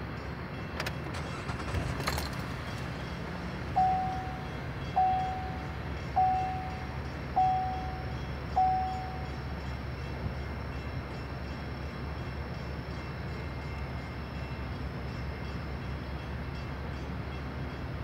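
A drawbridge warning bell strikes five times, about a second and a quarter apart, each ring dying away quickly. Under it runs the steady low hum of idling traffic.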